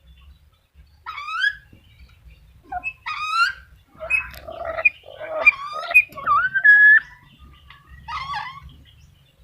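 Black-capped lory calling: a run of loud pitched calls that glide up and down, bunched together and loudest in the middle, including one drawn-out rising whistle, with a last shorter call near the end.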